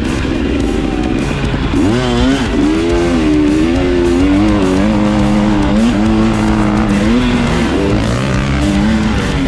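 Motocross bike engine running hard on a dirt track, its pitch rising and falling repeatedly as the throttle opens and closes through the turns, under background music.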